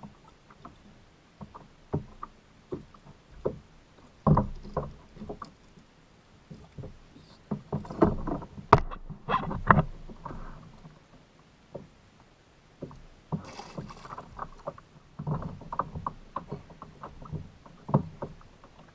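Irregular knocks and splashes on a fishing kayak on the water, with busier stretches of knocking and splashing about halfway through and again a little later.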